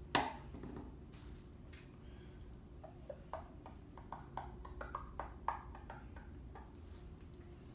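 A wooden stirring stick clicking and tapping against a small plastic bowl as slime mixture is stirred: a quick, irregular run of light ticks from about three seconds in until shortly before the end. One sharper knock right at the start.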